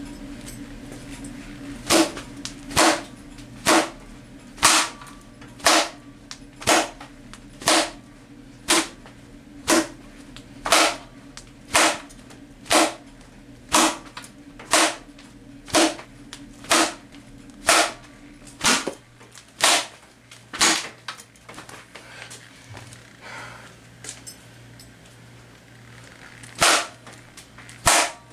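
Sharp smacking cracks as a belt whips a speaker woofer, about one lash a second for some seventeen seconds, then a pause and two more lashes near the end.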